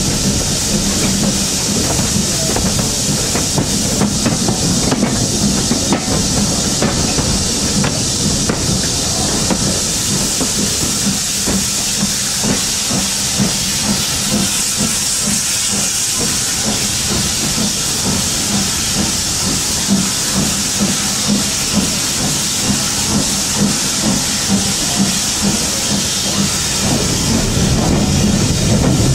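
BR Standard Class 4 tank locomotive 80080 running with a loud, steady steam hiss that grows stronger about halfway through, over the rumble of the train on the rails, as it passes through a tunnel.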